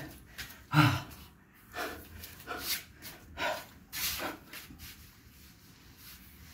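A man's sharp, forceful breaths out from exertion as he does crunches, about five in quick succession after a short voiced grunt about a second in.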